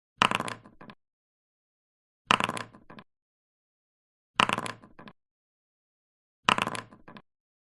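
Dice thrown and rattling to a stop, four times about two seconds apart: each a sharp clatter followed by a few smaller clicks, with complete silence between rolls.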